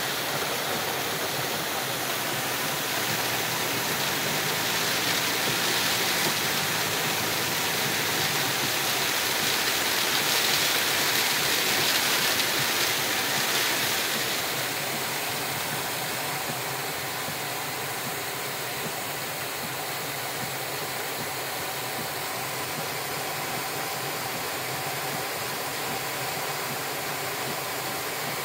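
Heavy rain beating on a car's roof and windshield, heard from inside the cabin, with spray from the tyres on the flooded road. A steady rushing that swells over the first half and eases off a little after about fourteen seconds.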